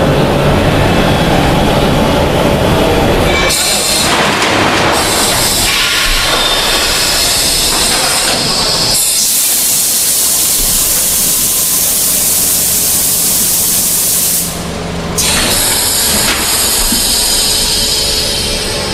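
Maoxing MX700-1200 vacuum forming machine running with steady machine noise. A loud air hiss swells about halfway through, stops for a moment about three-quarters of the way in, then comes back.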